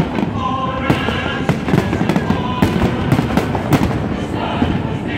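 Fireworks shells bursting at close range: many sharp bangs in quick, irregular succession over a steady din of further bursts.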